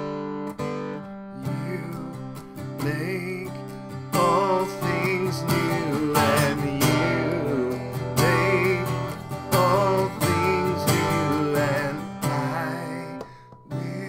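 A man singing a slow worship song while strumming an acoustic guitar. The guitar carries the opening seconds alone, and the voice comes in strongly about four seconds in.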